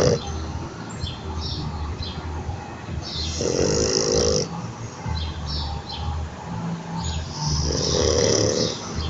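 French bulldog snoring: two loud snores, each about a second long and about four seconds apart, with quieter noisy breathing and small snuffles between them.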